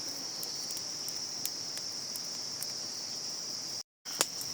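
Insects chirring in a steady high-pitched drone, with faint scattered ticks. The sound drops out briefly near the end and is followed by a single sharp click.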